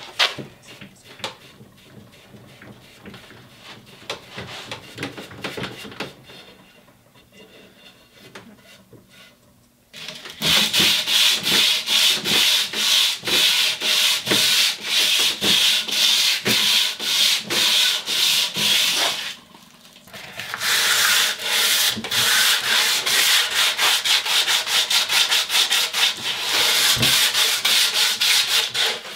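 A wooden axe handle being worked down by hand: about ten seconds of faint handling, then loud, fast back-and-forth abrading strokes at roughly three a second, with a brief pause about two-thirds of the way through before they resume. The handle is being thinned to fit the axe head.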